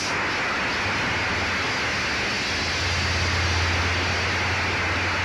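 Steady broad hiss with no distinct events. A low hum underneath grows louder about two and a half seconds in.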